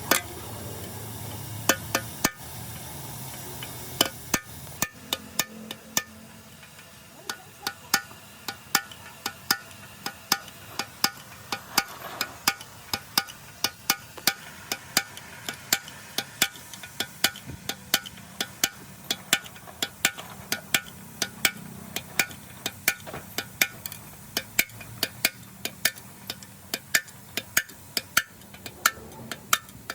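A small hammer tapping on engine parts: sharp, light strikes at an uneven pace of about two or three a second. A steady hiss sits under the first few seconds and drops away about five seconds in.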